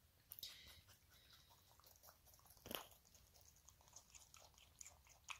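Lop-eared rabbit chewing a piece of watermelon: faint, quick crunching clicks with a louder crunch about halfway through.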